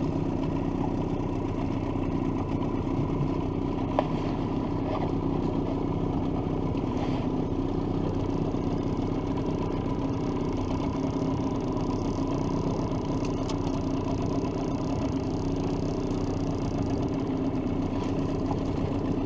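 Outboard motor running steadily at trolling speed, an even drone that holds the same pitch throughout, with one short click about four seconds in.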